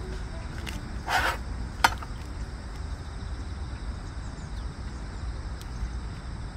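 Outdoor background with a steady low rumble. About a second in there is a short rustle, then one sharp click as metal camping cookware is handled at a gas stove.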